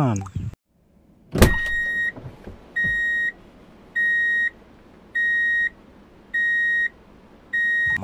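A sharp click, then a heavy vehicle's reversing alarm beeping six times, one steady high tone about every second.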